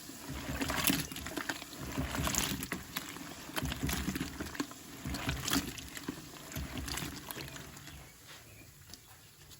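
Fermenting apple wine sloshing as the container is jiggled and stirred, with irregular fizzing crackles and pops from the carbon dioxide of active yeast fermentation. It dies down near the end.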